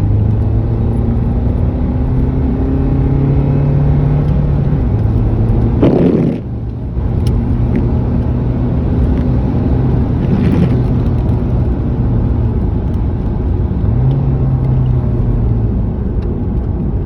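Car engine and road noise under acceleration, the engine note climbing in pitch, with a short dip about six seconds in as the gearbox shifts up, then pulling again and rising once more near the end.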